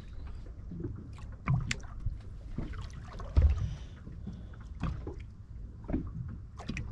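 Water and wind rumbling around a small fishing boat, with irregular knocks and bumps against the hull; the heaviest, a low thud, comes about three and a half seconds in.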